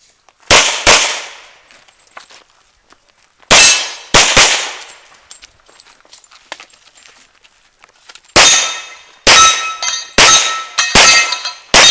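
Revolver shots fired at speed: two near the start, three a few seconds later, then five more in quick succession toward the end, with a metallic ring after several of the later shots.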